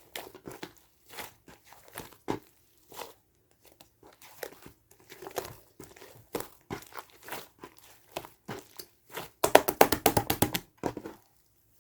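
Crinkly material being handled close up: a string of separate short rustles and taps, then a fast, louder run of crinkling from about nine to eleven seconds in, which stops abruptly.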